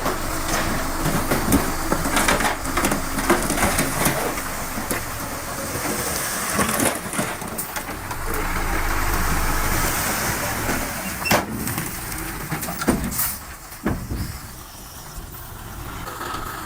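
Heavy diesel machinery running at work, a steady low engine rumble with scattered knocks and clanks, easing off a little for the last few seconds.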